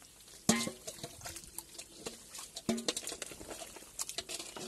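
Wet squelching and slapping of hands digging through mud and shallow water: a string of short, sharp splats, the loudest about half a second in.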